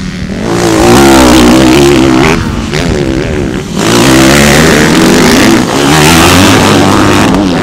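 Motocross dirt bikes revving hard as they power through a loose dirt corner, one after another. The engine pitch rises and falls with the throttle, and it swells loudly three times as bikes pass close.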